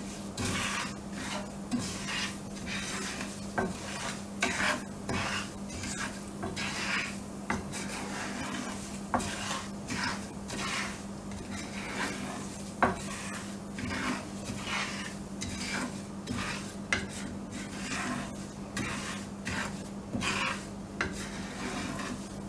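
Wooden spatula stirring fenugreek seeds and spice powders through oil in a frying pan, scraping across the pan about once a second with an occasional sharper knock against it. A steady low hum runs underneath.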